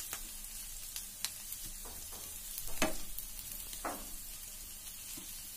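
Diced bitter gourd frying in a little oil in a nonstick pan, a steady sizzle, while a spatula stirs it, scraping against the pan four times; the loudest scrape comes about three seconds in.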